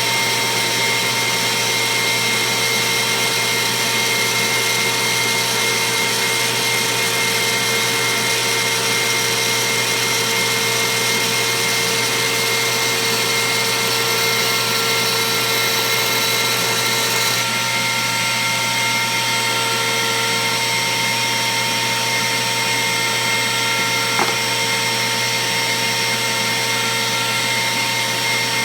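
Router in a router table running steadily, spinning a 1/8-inch single O-flute down-spiral bit, with a steady whine over the motor noise. About two-thirds of the way through the highest hiss drops away and the tone shifts slightly; a single short click comes a few seconds later.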